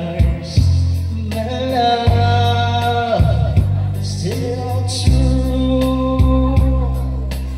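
A man singing karaoke into a microphone over a backing track with a bass line and a steady beat.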